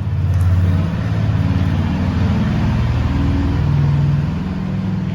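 A vehicle engine running with a low, steady note that shifts up and down in pitch a few times.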